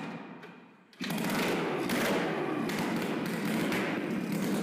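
Freshly rebuilt RMZ-640 two-cylinder two-stroke snowmobile engine catching about a second in and then running steadily with a fast, even firing rhythm, with no exhaust pipe or muffler fitted.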